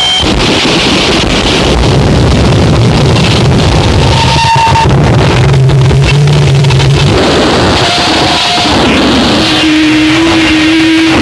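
Harsh noise recording: a loud, dense wall of distorted noise, with low droning tones that step in pitch and shorter held tones that come and go. A high steady tone cuts off right at the start as the noise comes in.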